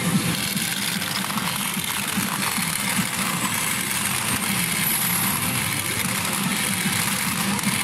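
Steady din of a pachinko parlour: a dense clatter of steel pachinko balls running through rows of machines, with no let-up.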